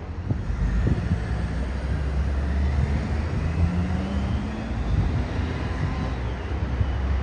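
Alexander Dennis Enviro bus running under a low engine rumble, with a high, vacuum-cleaner-like whine that slowly rises in pitch: the "Dyson hoover" sound of this bus.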